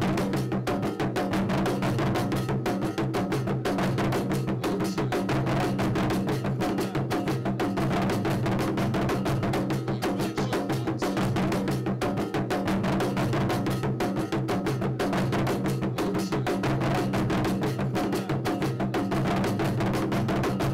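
Percussion music: drums played in a fast, dense, even beat over steady low held notes.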